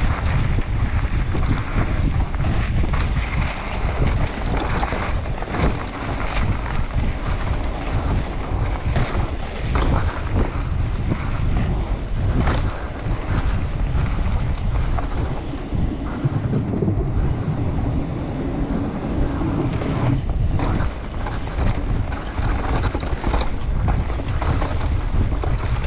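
Mountain bike riding fast down a dirt and gravel trail: wind rushing over the microphone, tyres rolling over the ground, and the bike rattling and knocking over bumps.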